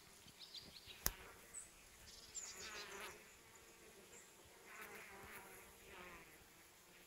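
Faint buzzing of bees foraging among flowering anise hyssop, with a single sharp click about a second in.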